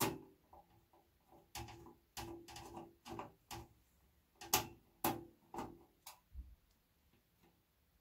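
Screwdriver working screws out of a steel computer case: a string of irregular metallic clicks and taps, which stop about six seconds in.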